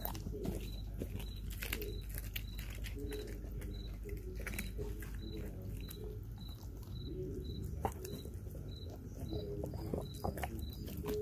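A Belgian Malinois chewing and crunching a raw whole chicken, with irregular wet cracks and clicks as it bites into meat and bone. A faint high chirp repeats about three times a second behind it.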